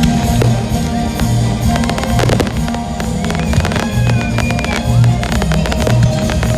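Rock music with guitar and a steady drum beat, with fireworks banging and crackling over it.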